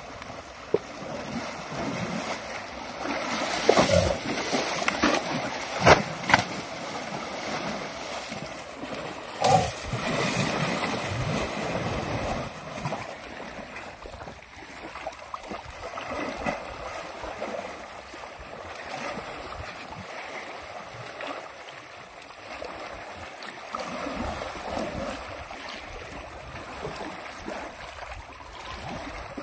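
A young Asian elephant wading and splashing in river water, the water sloshing around it, with a few louder splashes in the first ten seconds.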